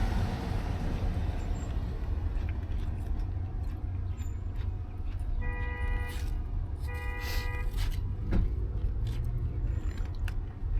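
Road and engine noise of a moving car, a steady low rumble, heard from inside the vehicle. About six seconds in come two short pitched beeps, about a second apart.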